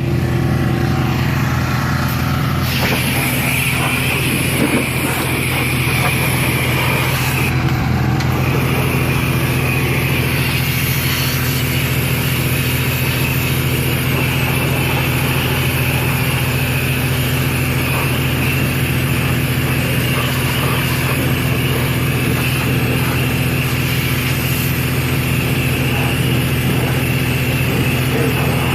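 Pressure washer running with a steady motor hum, its high-pressure water spray hissing from about three seconds in, cutting out briefly around eight seconds and then spraying again.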